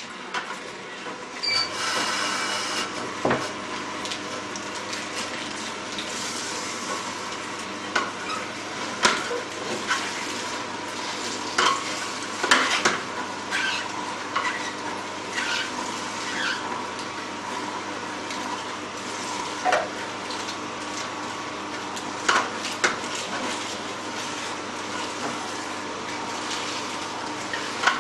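An Angel 7500 twin-gear juicer and an Omega VRT 350 vertical slow juicer running together with a steady motor hum, while lettuce leaves are fed in and pressed, giving irregular crunching, squeaking and clicking.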